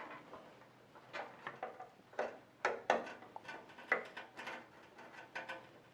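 Light, irregular clicks and taps of a SATA power cable's plastic connector being handled and plugged into the socket of a PC power supply.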